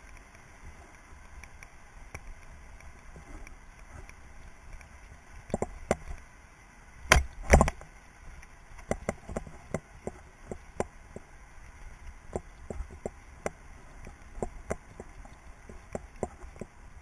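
Mountain bike rolling along a dirt forest trail: a low rumble with a steady run of clicks and rattles from the bike over roots and bumps, and two loud knocks close together about seven seconds in.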